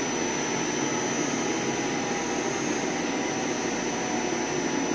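CNC lathe running between cuts: an even, steady machine noise with a thin constant high whine.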